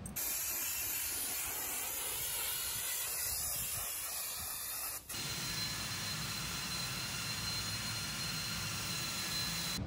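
Hand-held glass-bead blast gun blasting a bare aluminium motocross frame: a steady hiss of compressed air and blast media. About five seconds in, it cuts off abruptly and a different steady hiss follows, with a thin, high steady whistle.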